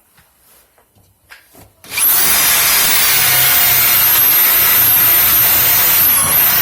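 Power drill with a hole saw boring a round hole, starting about two seconds in and running steadily with a high wavering whine and the rasp of the cutter in the material.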